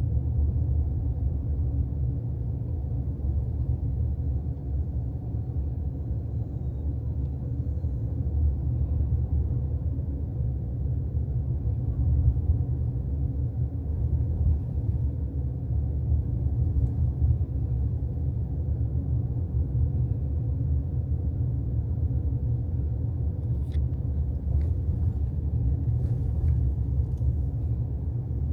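Steady low rumble of a car driving, with a faint steady hum above it and a few light clicks near the end.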